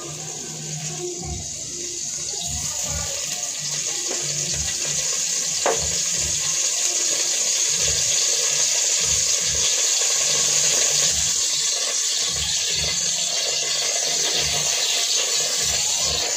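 Cooking oil heating in a pot on a gas burner, hissing and starting to sizzle, growing steadily louder, with one brief squeak about six seconds in.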